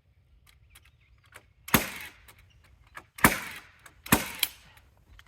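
Three loud, sharp strikes on lumber, the last followed quickly by a second: nails being driven into the rim board of a timber deck frame.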